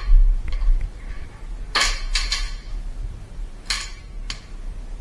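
Airsoft guns firing: several sharp snaps, a quick cluster about two seconds in and two more single shots near four seconds.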